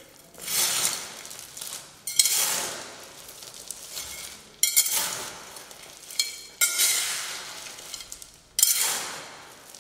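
Trowel hand-mixing wet concrete of cement, sand and coarse aggregate on the floor: five gritty scraping strokes about every two seconds, each starting sharply and fading away.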